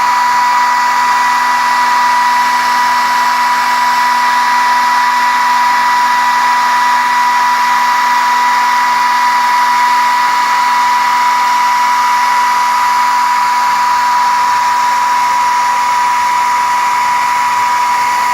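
Hair dryer running steadily: a loud rush of air with a constant high whine from its motor and fan.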